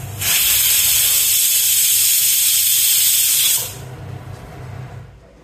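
Prestige Deluxe pressure cooker whistling once: steam hisses out loudly under the weight valve for about three and a half seconds, then cuts off. One whistle is enough to cook the pumpkin through.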